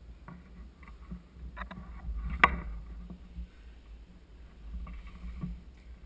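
Low rumble of wind and handling noise on the microphone with scattered light clicks, and one sharp crack about two and a half seconds in.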